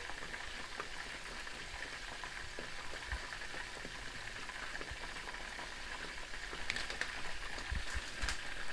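Steady sizzling hiss of food cooking on the stovetop. A few light clinks about seven and eight seconds in, as a metal spoon works honey out of a jar into a saucepan.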